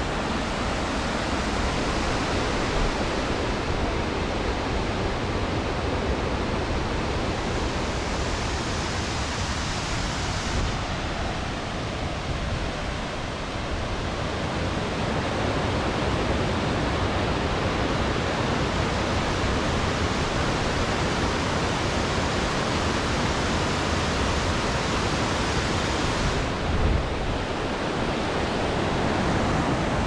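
Bâlea waterfall rushing: a loud, steady wash of falling water.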